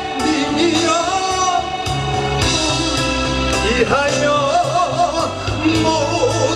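A man singing a slow Korean song with vibrato over an instrumental backing track played through a sound system.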